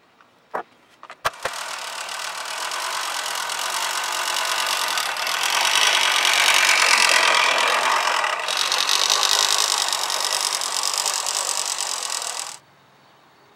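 AL-KO 380 HM Soft Touch reel hand mower, freshly back-lap sharpened, cutting grass: its spinning reel snips the grass against the bed knife in a dense, fast whirring rush. The rush is loudest midway and cuts off abruptly near the end. A few sharp clicks come just before it starts.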